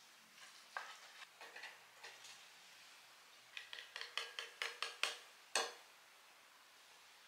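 Metal spoon knocking and scraping against a stainless steel bowl as flour is tipped out of it into a glass bowl. A few scattered knocks come first, then a quick run of light clinks, about five a second, ending in one sharper clink.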